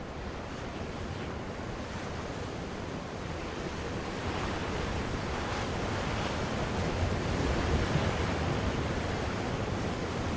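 Strong wind rushing and buffeting over the microphone, a steady roar of noise that swells louder over the first eight seconds or so.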